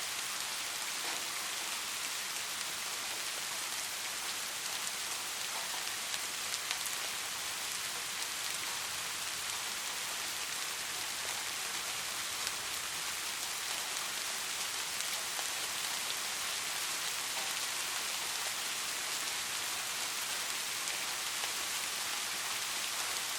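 Steady rainfall: an even hiss of many raindrops, with an occasional single drop ticking out a little more clearly.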